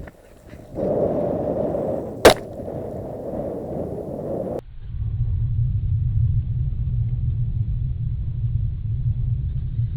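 A single shotgun shot about two seconds in, standing out sharply over a rushing background. Near the middle the background cuts off abruptly and gives way to a steady low rumble.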